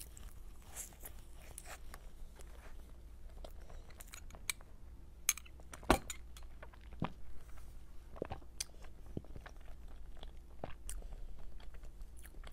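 Close-miked chewing and biting of a soft cream-filled green cake, with wet mouth sounds and scattered sharp clicks and crunches. The loudest click comes about six seconds in.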